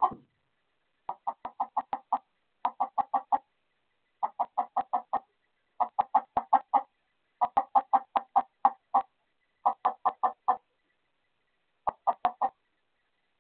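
Chicken hens clucking in repeated quick runs of short notes, about seven runs of several clucks each. This is the alarm clucking of hens with a skunk loose in the coop.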